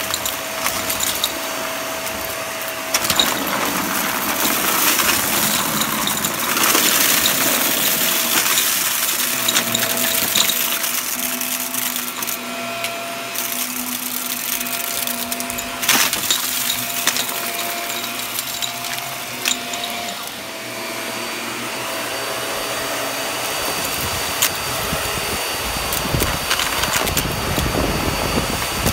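Shark upright vacuum cleaner running on carpet, its motor holding a steady whine while it sucks up a pile of dry debris. Scattered clicks and rattles of bits being drawn into the canister sound over it.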